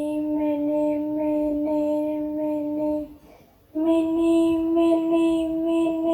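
A voice chanting a repeated nonsense syllable, "mini mini", on a single held note in two phrases. The first phrase lasts about three seconds; after a short break the second comes in slightly higher.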